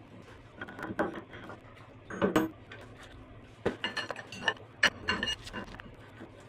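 Metal clinks and knocks of a spanner and hand tools on the steel head of a Boxford VM30 milling machine as the spindle housing is bolted down and tightened. There are a few scattered sharp, ringing clinks, busiest in the second half.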